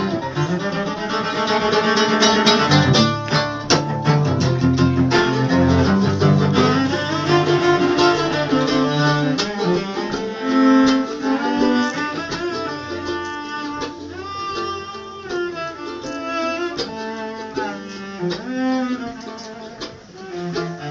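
Instrumental break on cello, bowed with sliding notes, with plucked string playing alongside.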